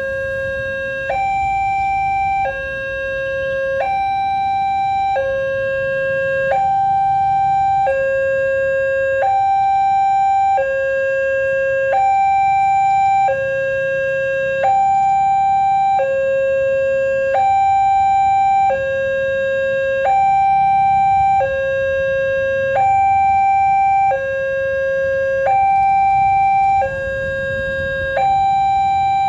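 Railway level-crossing alarm sounding a steady two-tone hi-lo signal, a higher and a lower tone of about a second and a quarter each in alternation, warning that a train is approaching. The uploader finds it nearly the same as the newest Wantech crossing alarm.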